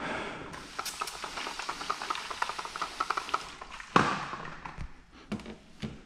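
Wet clear paint protection film crackling and crinkling as it is pulled back off the paint and headlight, with a denser run of small crackles and then one louder, sudden rustle of the sheet about four seconds in.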